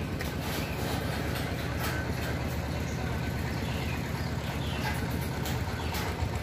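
An engine idling steadily, a low pulsing hum, with faint light clicks from wire being twisted onto the metal frame.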